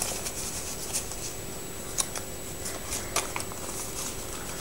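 Paper and card pages of a handmade junk journal being turned and handled: soft rustling with a few light ticks and taps.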